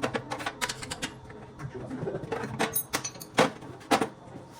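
Metal hand tools and parts clicking and knocking while the mounting bolts of a beverage cooler's small fan motor are worked. It is an irregular run of sharp clicks and clinks, with two louder knocks near the end.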